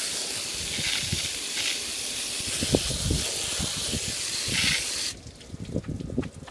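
Garden hose spraying water through the coils of a window air conditioner, a steady hiss that cuts off suddenly about five seconds in, leaving scattered dripping and splashing.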